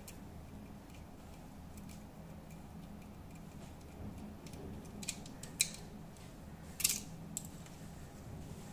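Small screwdriver working a tiny screw in a chrome metal lightsaber hilt: faint ticks, then a handful of sharp metallic clicks about halfway through, over a low steady hum.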